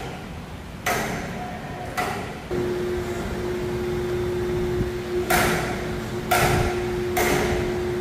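Five sharp metal knocks, each with a brief ring, spaced about a second apart with a gap in the middle. A steady low hum comes on about two and a half seconds in and runs under the later knocks.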